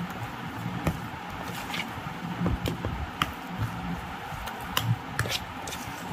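A spoon stirring thick, wet gram-flour (besan) batter in a plastic bowl: squelching with irregular light clicks as the spoon scrapes and knocks the bowl.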